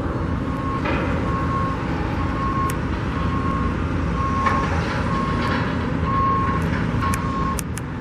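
A vehicle's reversing alarm beeping steadily, one short single-pitched beep a little more often than once a second, over a continuous low engine and traffic rumble.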